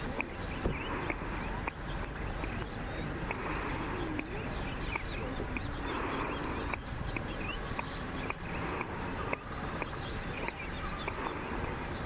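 Outdoor wildlife ambience: many short, sharp bird chirps repeating throughout, with a faint insect buzz, over a steady low rumble.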